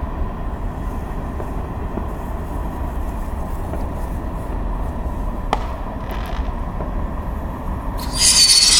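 A ground firework erupts about 8 seconds in with a sudden loud hiss and a high-pitched whistle that slowly falls in pitch. Before that there is only a low steady rumble.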